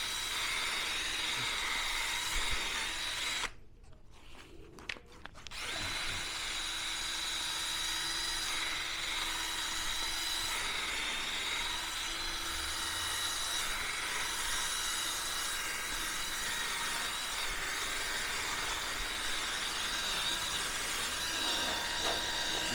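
Cordless drill spinning a wire brush against a concrete floor, scuffing the surface so the sealant will stick. It runs steadily, stops for about two seconds a few seconds in, then starts again and keeps going.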